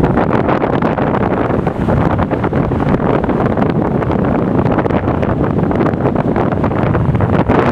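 High wind buffeting the microphone: loud, steady, fluttering wind noise with no letup.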